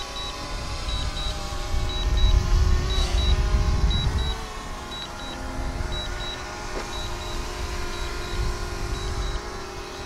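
DJI Mavic Air quadcopter hovering close by with a steady propeller hum, and a low rumble that swells for a couple of seconds. A short high double beep repeats about once a second, the warning beep of the drone's remote controller.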